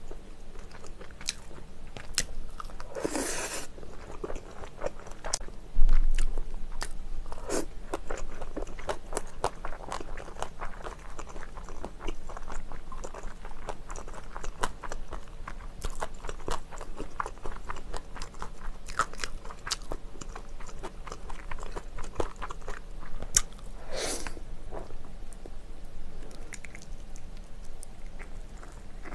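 Close-miked biting and chewing of spicy braised chicken, with many small wet mouth clicks and crackles. Two brief rushing sounds come about three seconds and twenty-four seconds in, and a low thump about six seconds in.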